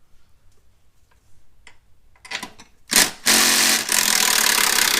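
A few light tool clicks, then about three seconds in a handheld power tool starts up and runs steadily at speed, loosening the second upper bolt of a car's rear shock mount.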